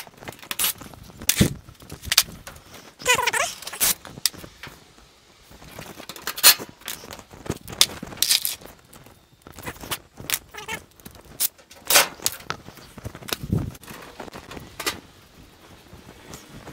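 Irregular clicks, knocks and light metallic clatter of tools and parts being handled while a washing machine is taken apart.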